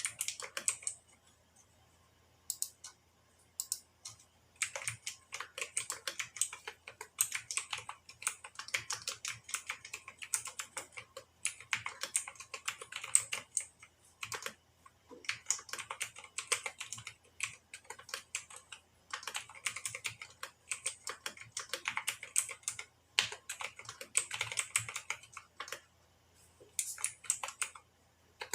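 Mechanical keyboard with clicky blue switches lubed with ointment being typed on in quick runs of keystrokes, broken by short pauses.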